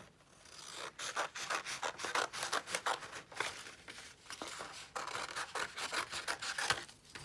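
Scissors cutting through a folded sheet of A4 paper in a long series of short, irregular snips, several a second, with the paper rustling.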